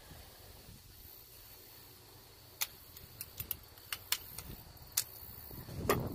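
Light, sharp metallic clicks, about eight of them scattered over the second half, as piston rings and a hand tool are handled while the rings are fitted to the pistons.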